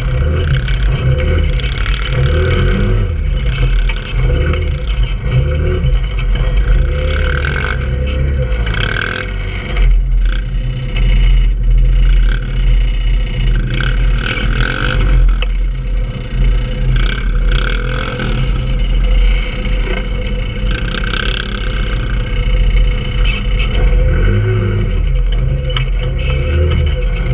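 Trailmaster 150 go-kart's single-cylinder four-stroke engine running at changing throttle, heard on board the kart, with knocks and rattles as it drives over bumpy dirt.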